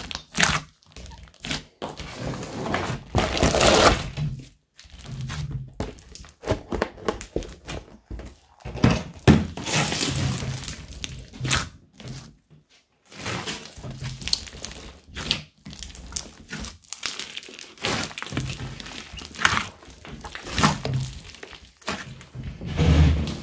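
Hands squishing and kneading a large mass of old slime mixed with floam foam beads: sticky squelches and crunchy crackling in irregular bursts, with brief pauses between handfuls.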